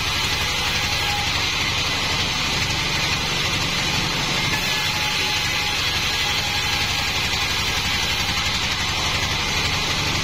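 Band sawmill running steadily: its drive engine with an even low pulse under a constant hiss, level throughout.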